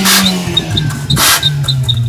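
Mazda 626's 2.0-litre four-cylinder engine dropping back from a rev toward idle, its pitch falling steadily, with a turbo-whistle adapter clipped onto the exhaust tip. A short burst of noise comes a little past a second in.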